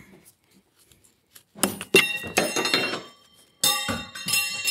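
Small flat steel pry bar clanking and scraping as it is levered against a stuck wood shim in a saw cut in composite decking. There are two bouts of sharp knocks with a metallic ring, about two seconds apart.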